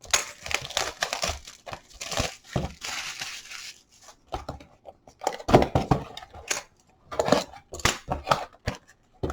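Packaging of a trading-card hobby box being torn and crinkled, with short knocks and taps of cardboard boxes being handled.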